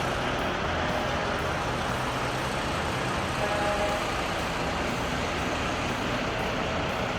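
Dump truck engine running steadily, an even mechanical noise with no change in pitch or speed.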